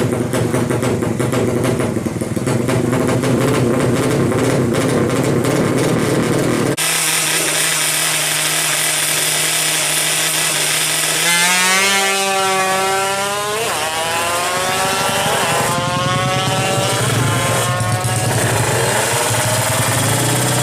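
Yamaha Alfa motorcycle's two-stroke engine, bored out to 116 cc with a 35 mm carburettor, running hard. It cuts abruptly about seven seconds in to a steadier running note, and then revs up and down several times.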